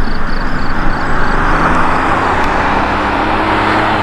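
Mercedes-Benz GLE 350d SUV with a six-cylinder diesel approaching, its tyre and road noise swelling steadily louder over a faint, even engine note.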